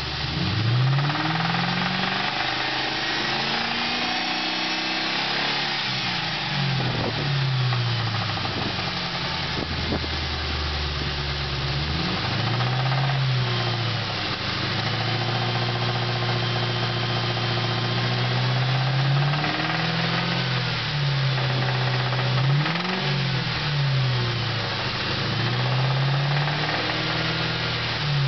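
4.6-litre V8 engine revved up from idle and let back down several times. It carries a knock that the owner says only gets loud from about 2500 rpm up, after the engine was run very low on oil; the cause is still unknown to him.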